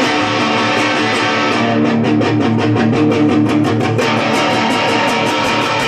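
Instrumental break in a guitar song: guitar playing sustained chords, with a run of fast, even strums in the middle lasting about two seconds.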